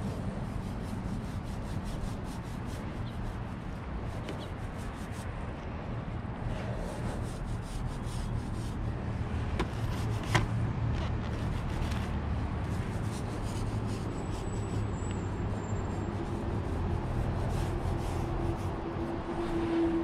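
Small foam paint roller rubbing wet paint onto a car hood, with soft scraping in the paint tray and one sharp tap of a stirring stick about halfway through, over a steady low rumble.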